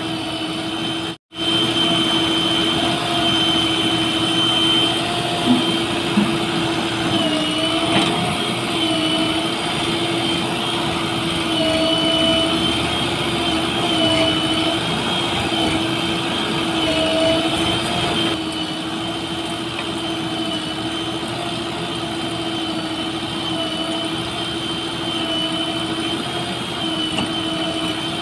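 Diesel engines of a JCB 3DX backhoe loader and a Swaraj 855 FE tractor running at close range, a steady droning note that sags briefly a few times as the backhoe's hydraulics take load while it digs and loads the trolley. The sound cuts out for an instant about a second in.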